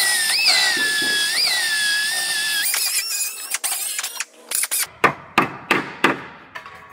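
Air-powered sanding tool whining on sheet metal, its pitch rising and dropping about once a second as it is eased on and off the panel seam, for the first few seconds. Then a quieter stretch broken by a handful of sharp clicks.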